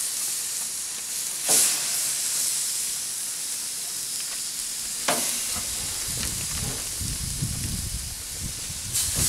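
Raw bone-in chicken sizzling on the hot grates of a gas grill, with sudden louder flares of sizzle as pieces are laid down, about a second and a half in, about five seconds in and again near the end. A low rumble joins in over the second half.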